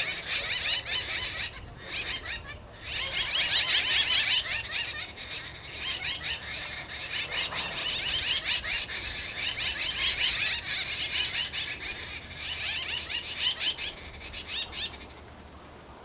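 A flock of jungle babblers chattering: rapid, overlapping calls from several birds, with a couple of short breaks near the start. The chatter stops about a second before the end.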